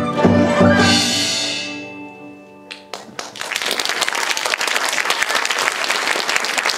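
A Chinese traditional orchestra of pipa, erhu and yangqin ends the piece on a final chord, with a cymbal crash that rings away over a second or two. About three seconds in, the audience breaks into steady applause.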